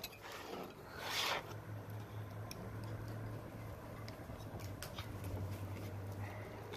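Fillet knife working into the tough, sandpapery skin of a triggerfish on a cutting board: a brief rasp about a second in, then a few faint ticks and scrapes, over a low steady hum.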